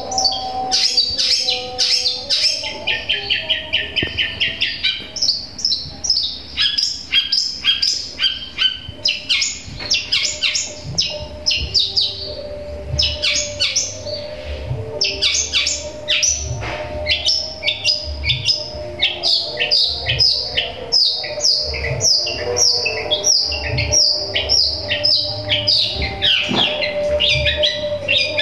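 Caged long-tailed shrike singing a fast, unbroken run of short, repeated high chirps and trills, with brief pauses, much of it mimicking Eurasian tree sparrow chirps strung together with other wild-bird calls.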